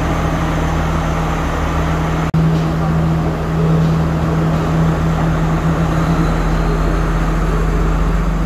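Steady drone of a stationary diesel passenger train's engine running, a constant hum with a deep rumble beneath it. The sound breaks off for an instant about two seconds in.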